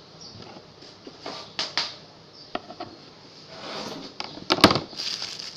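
A cutting board and knife being moved about on a countertop: a few light knocks and taps, then a louder clatter about four and a half seconds in.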